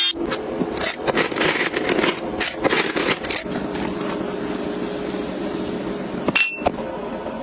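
Hard clicks, knocks and scrapes of kitchen items and containers being handled and set down. About three and a half seconds in, a steady low hum starts, and it stops just after six seconds with a short high beep.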